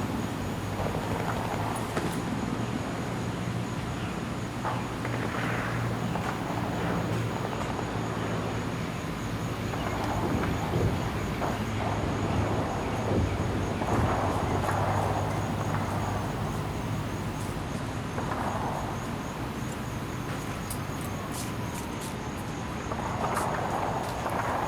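A steady low hum like a distant engine, over constant outdoor background noise.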